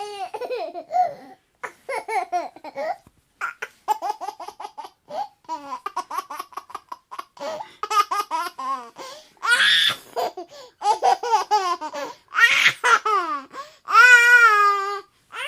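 A baby laughing and babbling: runs of quick giggles broken by several long, high-pitched squeals.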